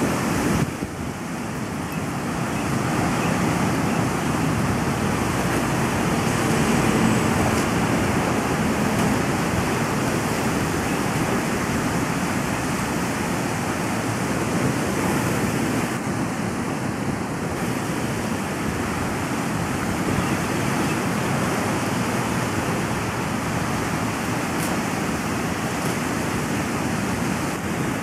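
Small waves washing against a rocky shore: a steady, even rush of surf.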